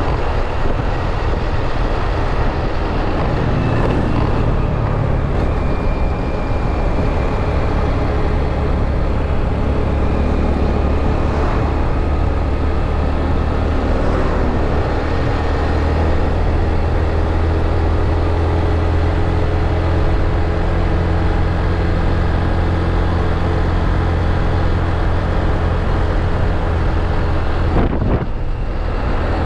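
Motor scooter being ridden on the road: its small engine runs steadily under a heavy, low rush of wind on the microphone, with a brief dip in the wind noise near the end.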